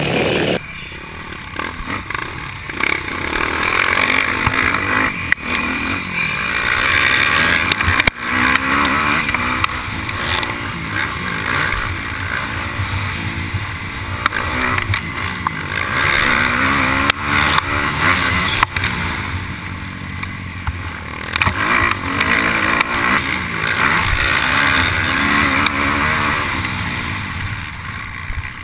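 Motocross bike engine heard from a camera mounted on the bike, its revs rising and falling over and over as the rider accelerates and shifts, with rushing noise and occasional knocks from the bumpy track.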